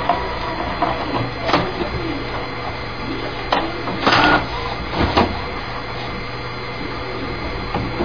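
HP inkjet printer running over a steady hum, with several short whirring, clicking bursts, the loudest about four seconds in.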